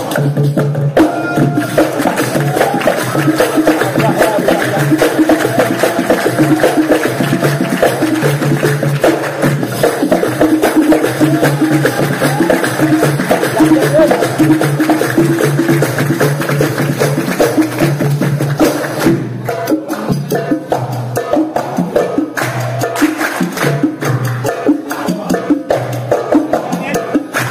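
Marawis ensemble playing a brisk instrumental rhythm on small hand drums and a deep hajir drum, with hand clapping over it.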